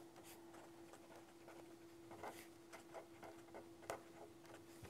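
Faint scratches and ticks of a pen writing letters on a paper legal pad, thickening about two seconds in. A faint steady hum runs underneath.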